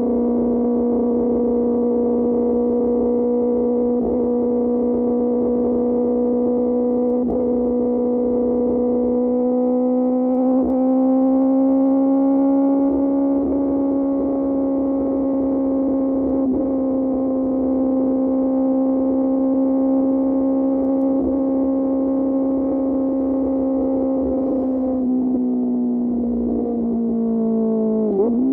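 QJ Motor SRK600's inline-four engine through an SC-Project exhaust, running at steady cruising revs. The pitch rises slightly about a third of the way in, holds, then drops near the end as the throttle eases off.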